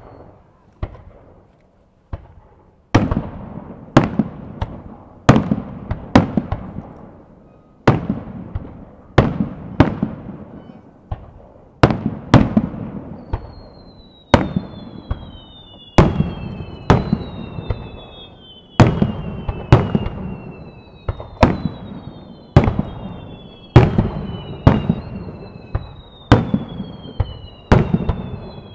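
Aerial firework shells going off in a rapid barrage, about one sharp bang a second, each followed by a rumbling echo. From about halfway through, high whistles falling in pitch sound over the bangs.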